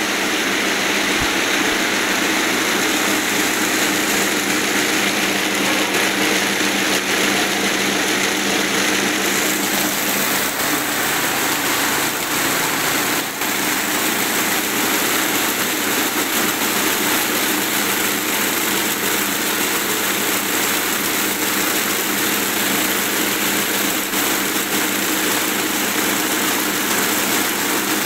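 16-spindle high-speed braiding machine running steadily: a continuous mechanical noise with a few faint steady hum tones underneath.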